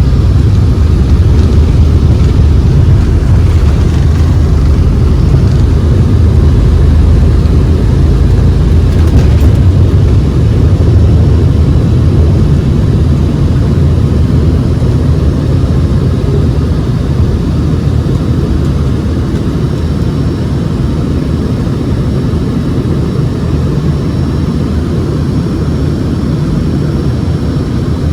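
Airliner's engines and airframe heard from inside the passenger cabin during the takeoff run: a loud, steady low rumble that eases off gradually in the second half.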